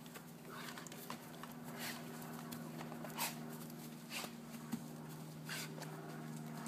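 Dogs playing on grass: a handful of short, irregular scuffling noises over a steady low hum.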